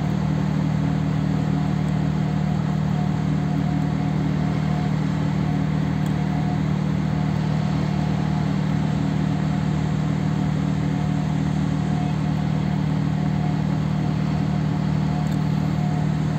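Ship's diesel engines droning steadily, a constant low hum with a few fixed tones over a rushing noise, with no change in pitch or level.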